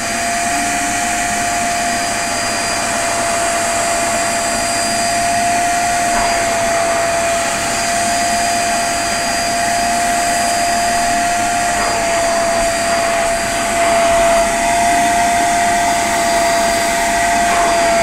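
STARQ 1000-watt wet and dry upholstery vacuum cleaner running steadily with a constant whine, its nozzle sucking across a car's fabric roof lining.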